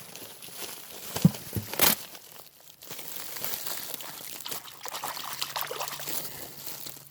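Water pouring and trickling out of flooded HVAC ductwork as it is opened up, after a few sharp crinkling clicks of the duct material in the first two seconds. The water is trapped in the ducts after the heat pump unit overflowed.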